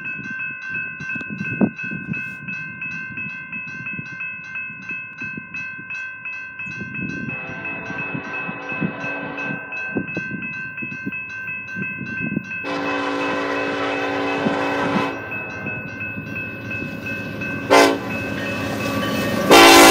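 Horn of an approaching BNSF SD70ACe freight locomotive sounding the grade-crossing pattern: two long blasts, a short one, then a last long one, which is the loudest and starts near the end.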